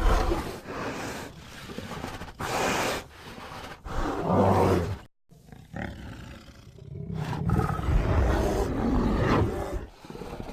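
Carnotaurus dinosaur roar sound effect: a series of growling roars, broken by a brief silence about five seconds in, then one long roar near the end.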